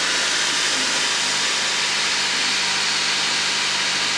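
2013 Honda Accord four-cylinder engine idling steadily just after starting, following an adjustment of an over-tight valve on cylinder 4 that had been causing low compression and a misfire.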